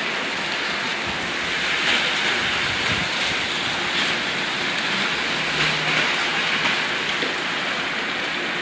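Steady rain falling, an even hiss that holds without let-up.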